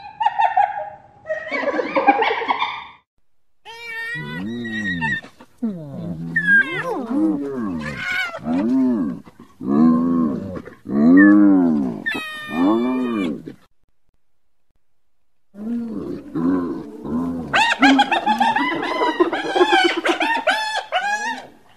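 Spotted hyenas calling. There are rough calls at first, then a string of rising-and-falling calls about a second apart. After a pause of about two seconds comes a rapid chatter of short, higher calls.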